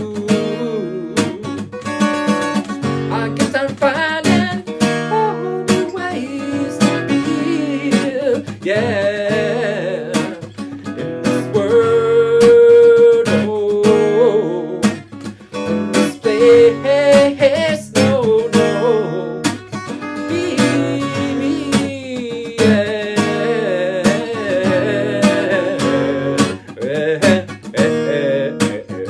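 Music: strummed acoustic guitar with a singing voice.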